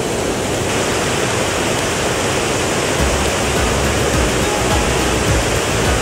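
Fast mountain stream rushing over rocks and a small cascade: a steady, loud water noise. About halfway through, a low rumble joins it.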